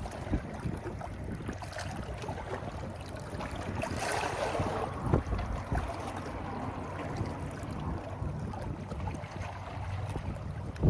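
Wind rumbling on the microphone over a steady hiss of water. The noise swells briefly about four seconds in, and there are a few light knocks.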